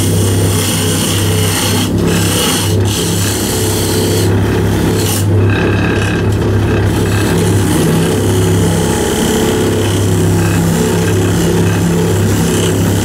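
Wood lathe running with a steady motor hum while a hand-held turning chisel scrapes and cuts the spinning wood. The hiss of the cut breaks off briefly a few times in the first half.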